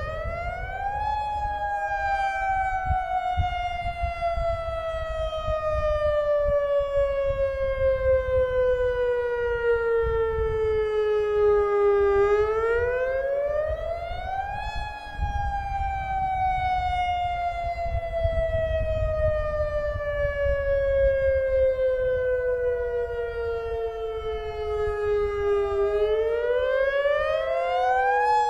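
Federal Signal lahar warning sirens sounding a repeating wail during a test. The pitch climbs for about two seconds, then sinks slowly for about eleven, and the cycle starts again roughly every 13 seconds. A second, fainter siren overlaps slightly out of step.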